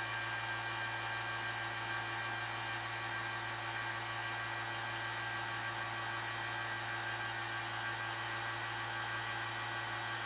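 Steady machine hum and whir: a constant low electrical hum with several fixed higher tones over a smooth rushing noise, unchanging throughout.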